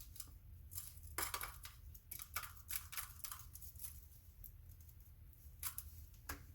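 Faint, irregular scratches and clicks of a hand tool picking at the clay plug and paper casing of a small firework cracker.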